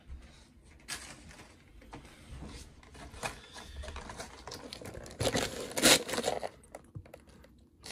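Pokémon card box in clear plastic blister packaging being handled: small clicks and taps of plastic, then a louder rustle of plastic from about five to six seconds in as the box is lifted.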